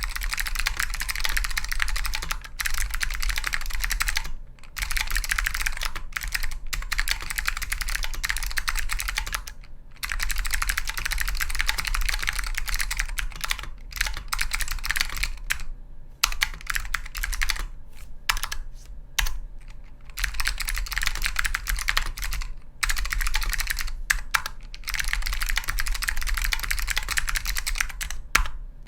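Typing test on an Orion V3 tenkeyless custom keyboard with Alps clicky switches and thin dye-sublimated old Dell keycaps: a dense run of crisp clicking keystrokes. It comes in bursts several seconds long with brief pauses between them. The sound is light and crispy rather than clanky, which comes from the thin keycaps.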